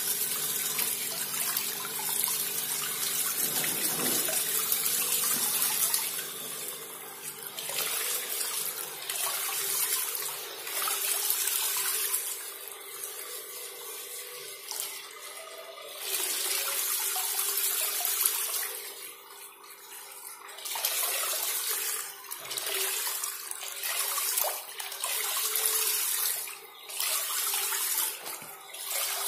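Homemade bell fountain nozzle throwing a sheet of water that splashes onto a pond surface, a steady spraying hiss that swells and dips as the nozzle is moved. Under it runs a faint steady hum from the pump's 775 DC motor.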